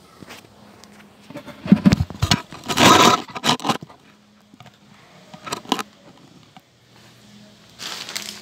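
Handling noise: a few hard knocks and a longer scrape about two to three seconds in as the recording phone is set down on the tile floor, a couple of small clicks later, then a plastic salt bag starting to crinkle near the end.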